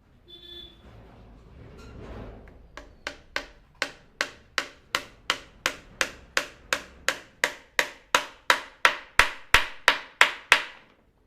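Hammer striking the wooden frame of a chair in a rapid, even run of blows, about three a second, which grow louder toward the end before stopping.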